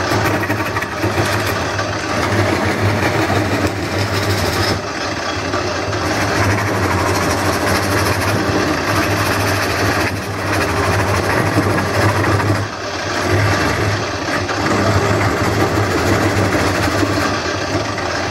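Wood lathe running with a steady motor hum while a hand-held turning tool scrapes and cuts the inside of a spinning wooden bowl. The cutting noise drops away briefly a few times as the tool comes off the wood.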